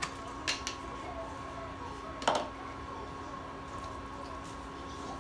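Wooden spoon stirring a saucepan of hot water with dissolving cotton candy, knocking against the pot twice, a light tap about half a second in and a louder knock a little over two seconds in, over a steady hum.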